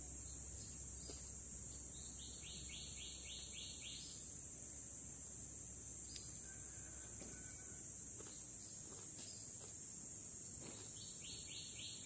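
Steady high-pitched insect drone of crickets or cicadas, with a bird twice giving a quick run of about four short downward-sliding notes a second, about two seconds in and again near the end.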